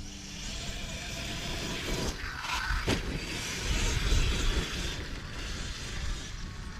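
Electric 1/5-scale RC truck (Arrma Outcast 8S) running across grass, its brushless motor whining briefly up and down a couple of seconds in, with wind rumbling on the microphone and one sharp click near the middle.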